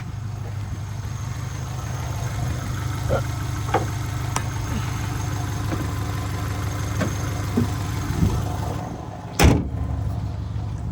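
Subaru Legacy engine idling steadily with no misfire, its exhaust-header fault now cured. A few light clicks sound over the idle, and a single loud slam comes about nine and a half seconds in.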